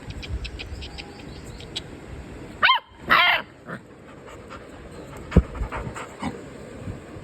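A dog giving two quick, high-pitched barks close together about three seconds in. Faint rapid ticking runs through the first two seconds, and there is a sharp knock about two seconds after the barks.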